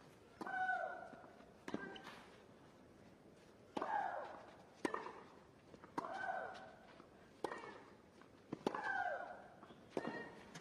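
Tennis rally on a clay court: racquets striking the ball about every one to two seconds, several shots paired with a player's short grunt that falls in pitch.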